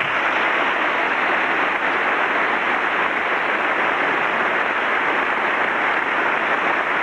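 A large audience applauding: dense, steady clapping that breaks out suddenly and holds at full strength.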